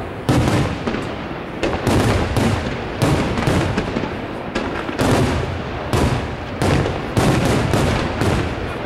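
Aerial firework shells bursting in a rapid barrage: sharp booms about one or two a second over a continuous din of overlapping bursts.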